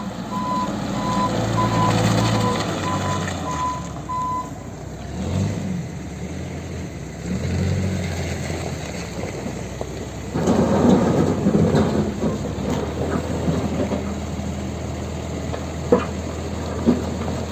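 Backhoe loader's diesel engine working and revving under load, with a reversing alarm beeping about twice a second for the first four seconds or so. About ten seconds in a loud rushing noise sets in, the sound of a bucketful of dirt being dumped into a truck bed, and two sharp knocks come near the end.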